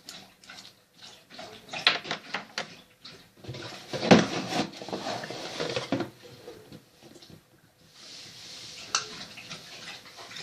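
Plastic toy pieces and containers being handled: scattered clicks, knocks and rustling, busiest about four to six seconds in.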